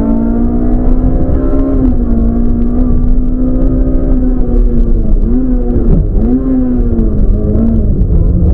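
Rally car's engine at high revs, heard from inside the cabin, its note held steady and loud with brief sharp drops in pitch about two, five and six seconds in, over a constant low road and drivetrain rumble.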